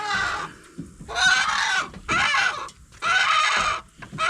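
Rooster wedged in a pickup truck's front grill, squawking in distress: about four loud calls in a row, each under a second long.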